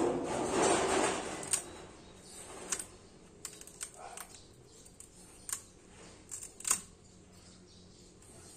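Rubber tyre-sticker lettering being peeled off a tyre sidewall by hand: a rasping pull in the first second or so, then scattered sharp little clicks and snaps as the letters come free.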